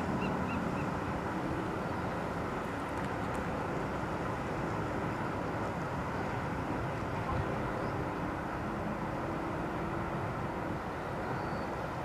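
Steady outdoor noise of wind and bay water with distant traffic, after a foghorn blast has just died away at the very start.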